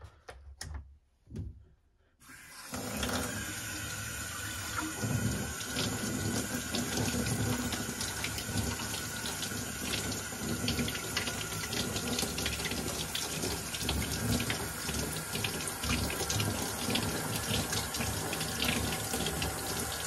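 Faucet water running into a sink and splashing over a Dyson cordless vacuum's washable filter as it is rubbed clean by hand; the water comes on about two seconds in and then runs steadily.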